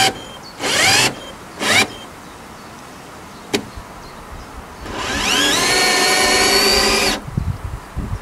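Cordless drill working into a wooden post: three short trigger bursts in the first two seconds, each a whine that rises as the motor spins up. A single sharp click comes midway, then a longer run of about two seconds that rises and then holds steady.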